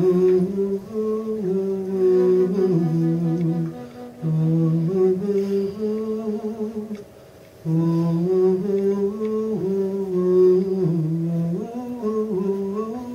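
A man humming a slow melody without words, in three phrases broken by short pauses about four and seven seconds in.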